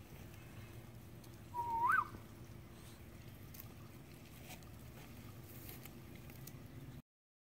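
A short whistle, about half a second long: one steady note that then slides sharply upward, heard over faint steady background noise.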